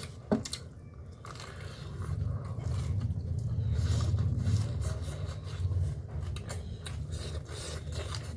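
Close-miked chewing and biting, with scattered sharp mouth clicks and a low rumble of jaw and handling noise that swells in the middle.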